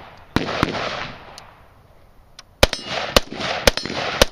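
Rifle shots fired in a timed shooting stage: two quick shots, a short lull, then four more about half a second apart. Each sharp crack is followed by an echo.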